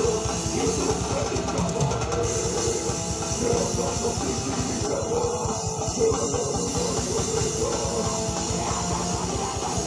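Heavy metal band playing live: electric guitars over fast, dense drumming, steady and loud with no break.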